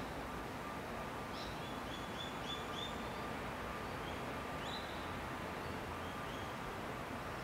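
Outdoor ambience with a steady hiss and a bird calling: a quick run of about five short, high chirps between one and three seconds in, then a few scattered chirps.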